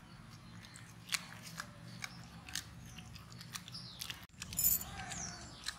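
People biting and chewing crispy fried chicken fingers: scattered short crunches.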